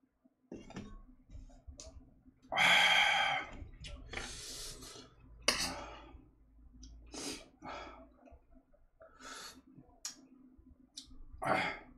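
A person eating, making a string of short, breathy mouth sounds. The loudest comes about two and a half seconds in.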